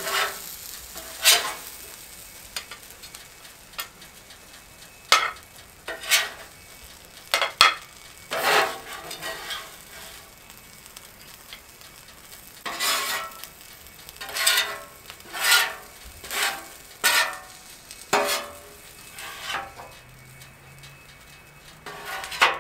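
Metal spatula scraping across a hot flat-top griddle in a series of short, irregular strokes over a steady sizzle, scraping up the minced garlic and seasonings stuck to the cooking surface.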